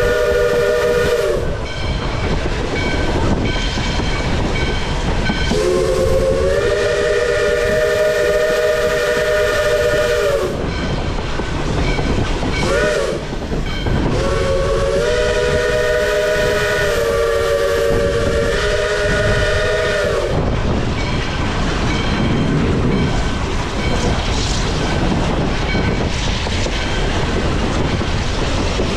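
Little River Railroad No. 110's steam whistle, several notes sounding together, blowing the long-long-short-long grade-crossing signal: a blast fading out about a second in, a long blast, a brief toot, then a final long blast that wavers in pitch. Under it, and alone for the last third, the train's steady running noise and wheel clatter on the rails.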